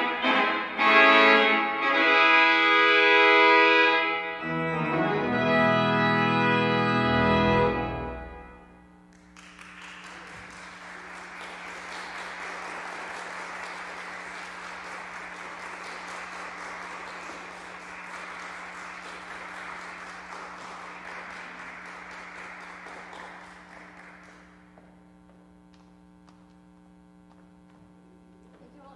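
Pipe organ sounding loud sustained closing chords, a deep pedal note joining partway through, released about eight seconds in and dying away in the church's reverberation. Applause follows for about fifteen seconds, then fades.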